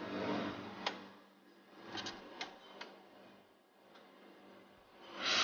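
Automatic pour point analyzer running: a low steady hum with about half a dozen scattered sharp clicks. A rush of noise swells up near the end.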